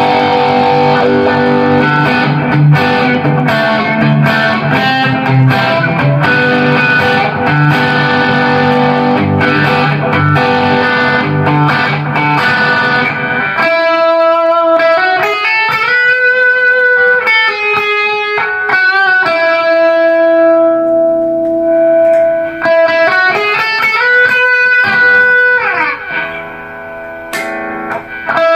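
Restored Epiphone Coronet electric guitar played through an amplifier with overdrive. For roughly the first half it chugs out distorted chord riffs, then it switches to single-note lead lines with held, bent notes and slides.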